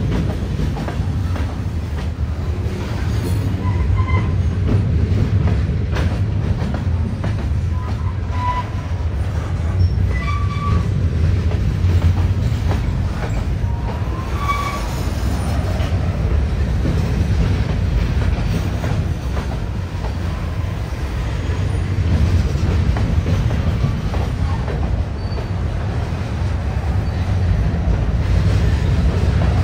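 Freight train with diesel locomotives rolling past: a steady low rumble, with short high wheel squeals a few times in the first half.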